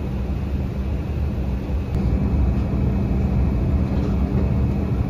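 Steady in-flight cabin noise of an Embraer 190 regional jet: a constant rushing drone of air and engines with a low hum.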